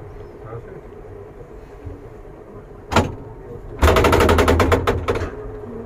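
A Pilatus Railway rack railcar running with a steady low hum. About three seconds in there is a single sharp knock, then a loud rapid clattering for about a second and a half as the running gear crosses the track and rack joints.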